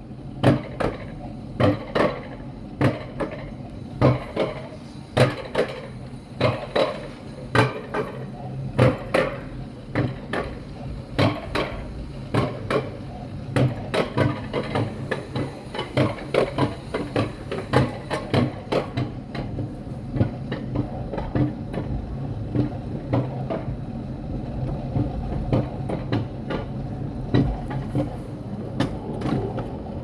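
Alpine coaster sled running on its twin steel rails while being hauled up the incline: a steady low hum with sharp metallic clacks about one or two a second.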